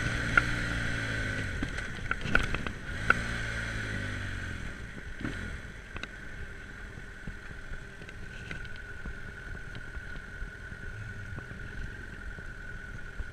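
BMW GS adventure motorcycle's engine dropping in pitch as the bike rolls off and slows on a dirt track, with a few sharp knocks in the first few seconds. From about five seconds in it settles to a quieter steady idle as the bike stops.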